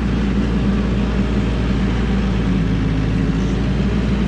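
TYM 574 compact tractor's diesel engine running steadily under load as the tractor drives through soft, snow-covered mud; its note shifts slightly about halfway through.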